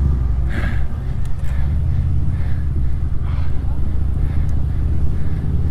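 Wind rushing over the camera microphone on a moving road bike, a steady low rumble with faint traffic behind it.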